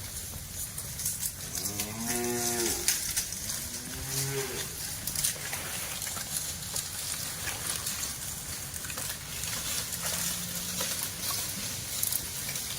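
A cow mooing twice: a longer call that rises and falls in pitch about one and a half seconds in, then a shorter call about a second later, over steady background noise with scattered clicks.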